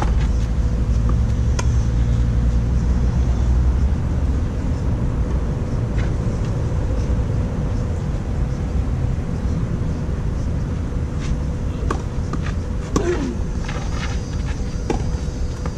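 Tennis rally on a clay court: sharp racket-on-ball strikes, a few seconds apart, over a steady low rumble and a faint hum.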